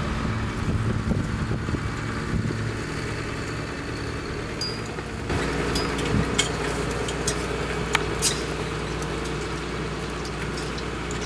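John Deere 7930 tractor's six-cylinder diesel engine running steadily as it pulls a 24-row seed drill past, growing a little louder about halfway through. A few light clicks and rattles come in the second half.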